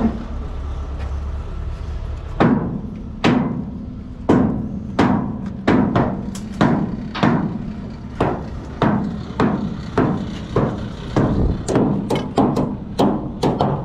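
Hammer blows knocking loose nailed-down wooden blocking, a steady series of sharp strikes starting a couple of seconds in and coming faster near the end. A steady low hum runs underneath at the start.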